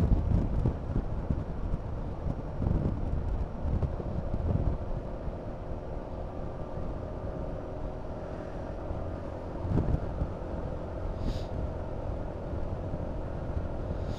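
Wind buffeting the microphone in gusts while riding, over the steady drone of a Honda Forza 350 scooter's single-cylinder engine; the engine's hum comes through more clearly about halfway through as the gusts ease.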